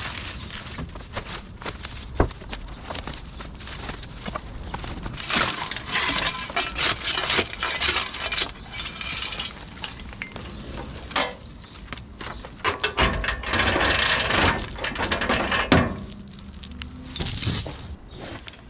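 Dry sticks and brush snapping and rustling as they are pulled and broken away by hand: irregular cracks and crackles, with some metallic clinks among them.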